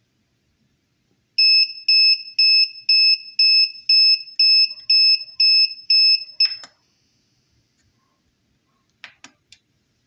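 Buzzer of a homemade Arduino-based grill temperature alarm sounding a fast series of about a dozen high, even beeps, a little over two a second: the warning that the probe has gone past its upper temperature limit. The beeping cuts off with a click, and a few faint clicks follow near the end.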